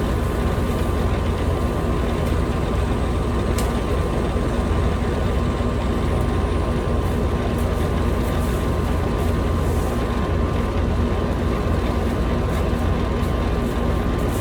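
Engine of a piece of heavy equipment running steadily at constant speed, a deep rumble with a steady hum that does not change, and a single sharp click about three and a half seconds in.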